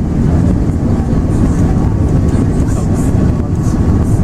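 Steady, loud low rumble of Airbus A380 cabin noise, engines and airflow heard from a passenger seat.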